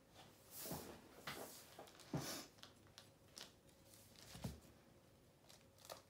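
Faint handling noises: half a dozen short rustles and light knocks as hands reach in and pick up a plastic squeeze bottle of paint.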